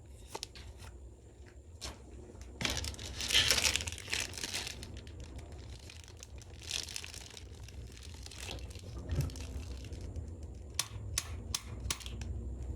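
Model kit packaging crinkling and tearing in bursts, loudest a few seconds in, with a few sharp clicks near the end.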